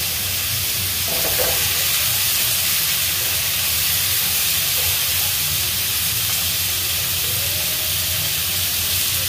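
Squash sizzling steadily as it stir-fries in a frying pan over a gas burner, with a steady low hum underneath.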